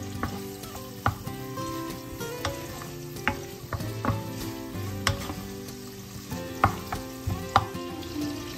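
Bacon, shrimp and garlic sizzling gently in oil in a nonstick frying pan on low heat, while a wooden spoon stirs them, knocking and scraping against the pan a dozen or so times at irregular intervals.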